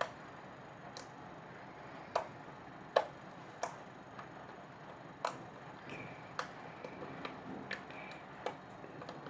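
Borax slime being poked and squished by hand, giving irregular sharp clicks and pops, the loudest about two and three seconds in. The slime, firmed up with eye drops, is no longer sticking to the fingers.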